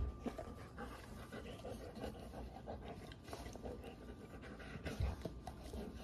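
A dog chewing and mouthing a plush toy with rubber parts, panting, with irregular soft clicks and two dull thumps, one at the start and one about five seconds in.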